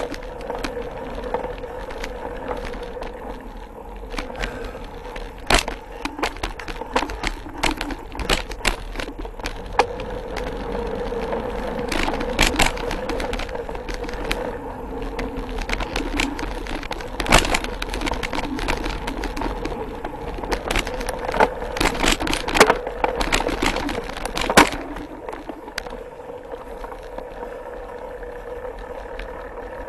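Mountain bike rolling fast over a dirt singletrack, heard up close from the handlebars: a steady rush of tyre and trail noise with a constant hum, broken by many sharp clacks and rattles as the bike hits roots and bumps, thickest in the middle stretch.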